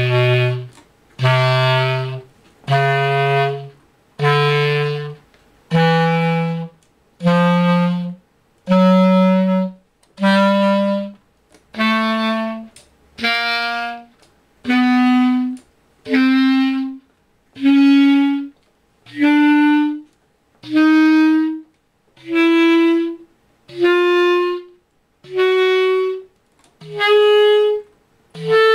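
Bass clarinet playing a slow ascending scale of separate held notes, about one a second with short breaks between, each a step higher than the last, climbing about two octaves from its low register.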